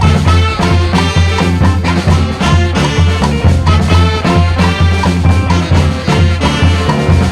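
Street brass band playing an upbeat, swing-like tune, with a strong low bass line under the horns and a steady beat.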